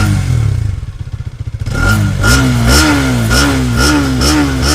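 Hero Xtreme 250R's single-cylinder engine heard close at its side-mounted short-can stock exhaust. One quick throttle blip, then idling, then from about two seconds in a fast series of short revs, about two a second.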